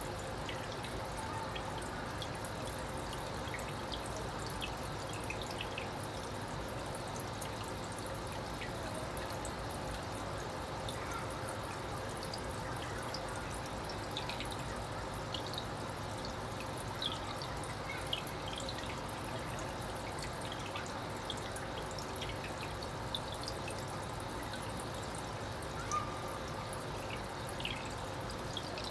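Steady trickle of water with scattered small drips and a faint steady hum, typical of aquarium filters and aeration running.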